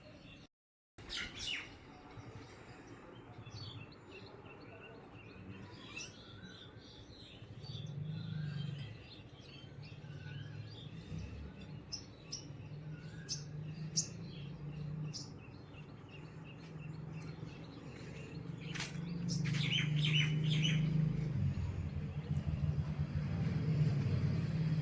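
Birds chirping in short, scattered calls, with a quick run of chirps about three-quarters of the way through, over a low steady drone that gets louder near the end.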